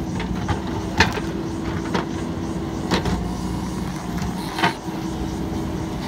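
JCB 3DX Super backhoe loader's diesel engine running steadily as the backhoe works, with four sharp knocks as the bucket pushes against the concrete culvert pipe. The first knock, about a second in, is the loudest.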